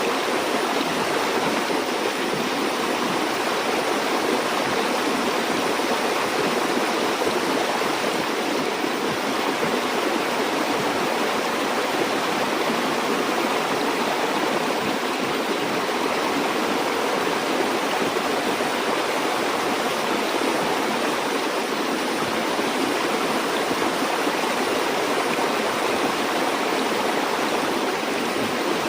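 A river or stream flowing steadily, with a constant rushing of water that does not change.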